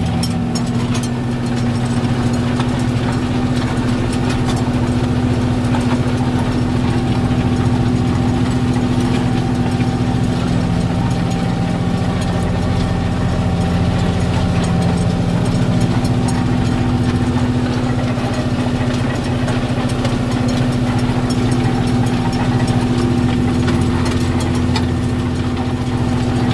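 New Holland 8870 tractor's diesel engine running steadily under a constant load.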